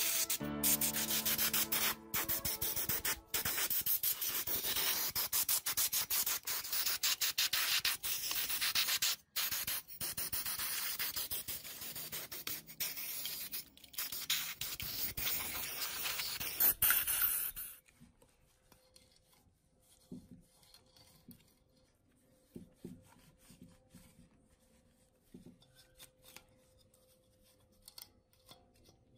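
A brush scrubbing the grimy CRT picture tube while a compressed-air blow gun hisses: a loud, dense hiss with quick scrubbing strokes that cuts off suddenly a little over halfway through. After that comes faint rubbing as a cloth wipes the tube's glass neck.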